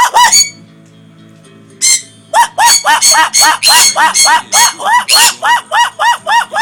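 Pet conure calling: a couple of loud arched squawks, then about two and a half seconds in a fast, even run of repeated calls, about four a second, that keeps going.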